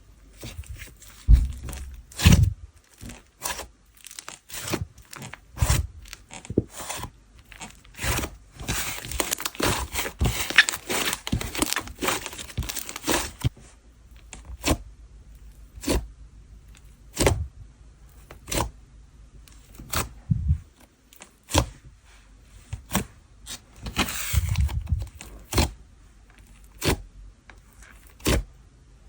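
Hands pressing, poking and stretching a whipped-texture slime, making a string of sticky pops and clicks. A longer stretch of dense crackling comes in the first half and a shorter one near the end.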